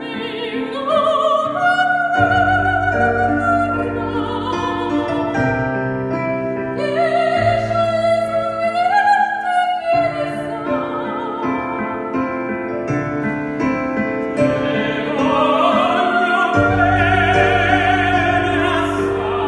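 Operatic solo singing with strong vibrato, long held notes rising and falling, over piano accompaniment.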